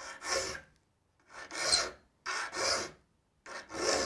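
A saw file rasping across the teeth of a handsaw during sharpening, four strokes a little over a second apart.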